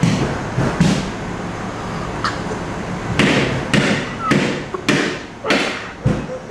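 A string of irregular thumps and knocks, about nine in six seconds, over a steady background noise.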